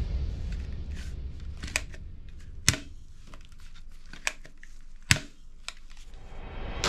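Handling noise from a hard plastic toy blaster being picked up and turned over a box of plastic toys: about five sharp plastic clicks and knocks with light rustling between them. Background music fades out at the start and swells back in at the very end.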